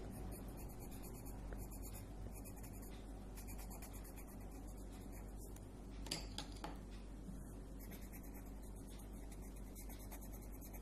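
Colour pencil scratching faintly on sketchbook paper as a drawing is shaded in, over a steady low hum. Two light clicks come about six seconds in.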